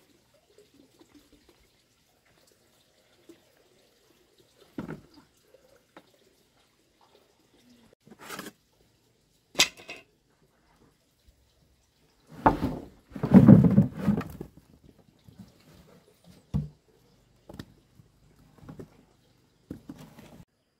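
Dried cassava roots dropped and tipped into a heap on hard earth: a clattering tumble of woody thuds about two-thirds of the way in, with scattered single knocks before and after.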